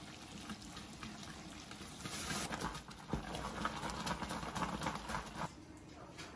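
Candy sugar syrup boiling and bubbling in a copper pot as a wooden paddle stirs it, with a dense crackle that grows louder about two seconds in and drops back near the end.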